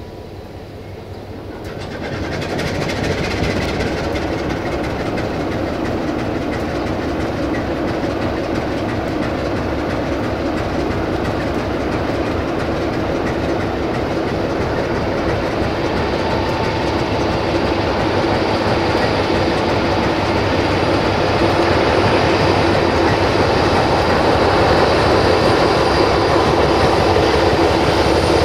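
Diesel shunting locomotive running as it hauls a string of freight wagons, the wagons clattering over the rail joints, with a steady engine hum. The noise comes up about two seconds in and then grows slowly louder as the train draws nearer.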